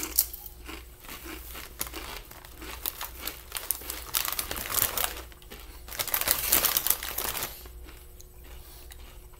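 Plastic-foil chip bag crinkling as it is handled, in several rustling bursts, the longest near the middle and about two-thirds of the way through.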